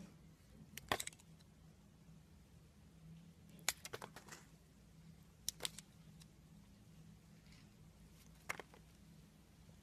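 Utility-knife blade cutting into a bar of soap: short, crisp crunching cuts that come in small clusters, about a second in, around four seconds, around five and a half seconds and around eight and a half seconds, over a faint low hum.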